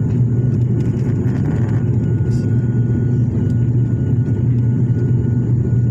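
Steady low drone of a twin-turboprop airliner's engines and propellers heard inside the passenger cabin, with a faint steady high whine above it, shortly after take-off.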